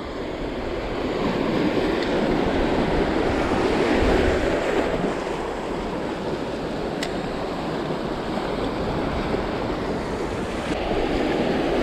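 Sea surf washing and breaking over shoreline rocks, swelling slightly about four seconds in, with wind on the microphone.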